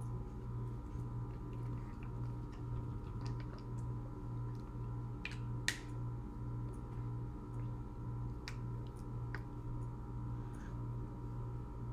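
A steady low hum that pulses evenly throughout, with scattered light clicks and one sharper click about halfway through.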